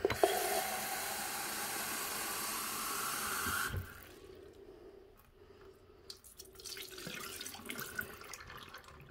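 Water running from a tap into a container, its pitch rising steadily as the container fills, until the flow stops abruptly a little under four seconds in. Soft dripping and light splashing follow.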